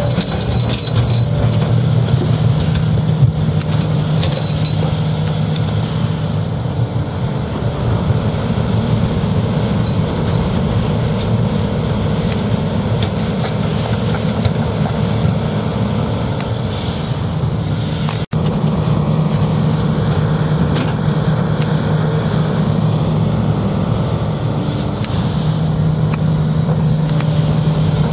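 A tracked excavator's diesel engine runs steadily under load while the excavator digs a trench, with scattered knocks and clatter from the bucket working in soil and rock. The sound cuts out for an instant about two-thirds of the way through.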